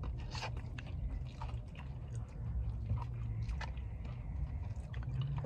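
Close-up eating sounds: chewing, with irregular small clicks and scrapes of a plastic fork working food in a takeout bowl. A low steady hum runs underneath.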